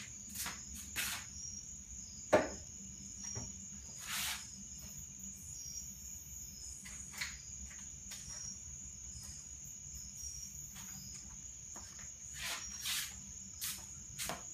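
A steady high-pitched whine with short chirps repeating under it, and scattered light clicks and knocks of handling on the workbench, the sharpest about two and a half seconds in.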